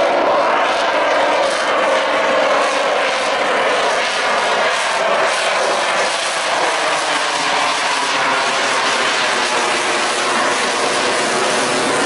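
An F-35A Lightning II's single Pratt & Whitney F135 turbofan, loud and steady as the jet flies a banking pass overhead: a dense rushing jet noise with a faint wavering whine above it.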